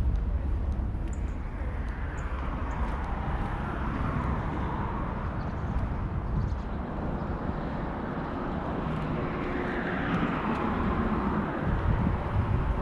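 A vehicle passing by: a steady rushing noise whose hiss slowly sweeps up and down, with a faint steady hum joining about two-thirds of the way through.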